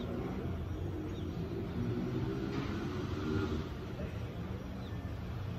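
Low, steady rumble of city traffic, swelling briefly a few seconds in as a vehicle passes.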